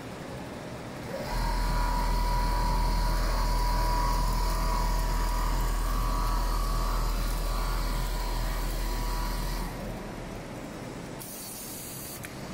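Computerised quilting machine running as it stitches: a steady motor hum with a whine and a hiss, starting about a second in and stopping after about eight seconds.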